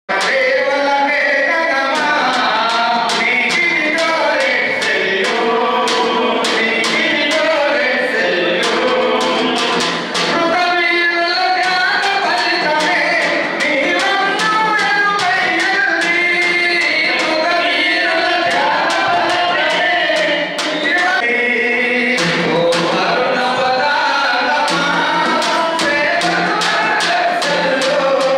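A group of men singing a song together, accompanied by a steady beat on a double-headed barrel hand drum.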